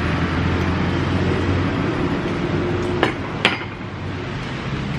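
Steady low background rumble and hum, with two sharp clinks of crockery on a table about three seconds in, the second louder.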